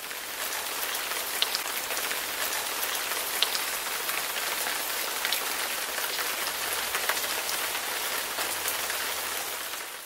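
Steady rain falling: an even hiss with scattered sharp drop ticks.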